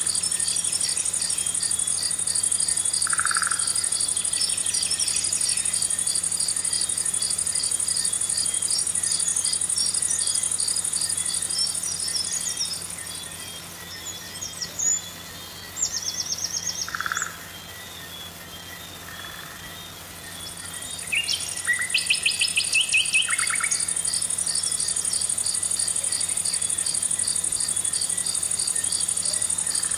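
A chorus of insects trilling steadily on a high note, with a fast pulsing call beneath it. The trill drops out for several seconds around the middle, when short rapid series of chirping calls come through.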